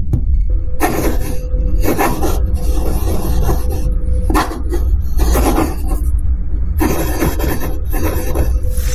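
Pen nib scratching across paper in a series of separate writing strokes, each a fraction of a second to about a second long. A steady low rumble runs underneath.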